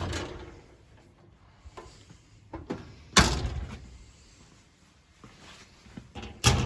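Steel tool chest drawers or doors being shut: a knock at the start, a loud metallic thunk with a short ring about three seconds in, and another thunk near the end.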